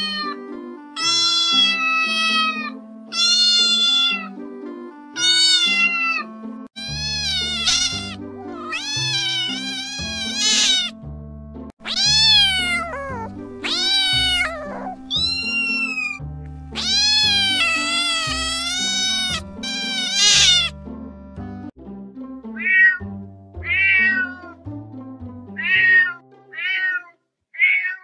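A cat meowing again and again, one drawn-out meow every second or two, over background music whose low bass line comes in about seven seconds in. In the last few seconds the meows turn shorter and come more quickly.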